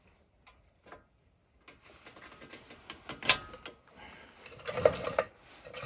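Snap ring pliers working a steel snap ring onto a new upper ball joint: light metallic clicking and scraping, with a sharp metal snap about three seconds in and another loud clatter near five seconds.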